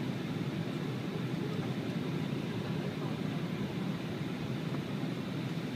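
Steady low rumble of cabin noise inside an Embraer E190 jet airliner, with its engines and air systems running.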